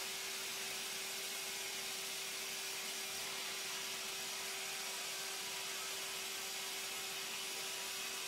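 Machinery running steadily: an even hiss with a constant hum underneath, with no strokes or changes.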